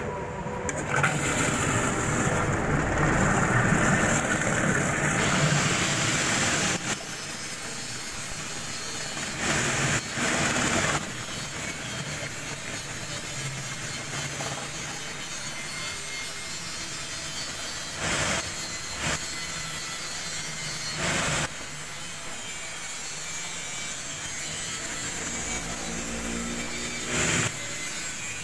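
Electric motor and gearbox of a soap-and-paint mixer running, turning its paddle in a plastic drum. Workshop metal-grinding noise rises in several brief surges over it.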